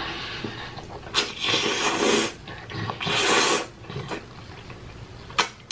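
A person eating a hot mouthful of food with loud, noisy breaths: two long huffs, the first a little over a second in and the second about three seconds in.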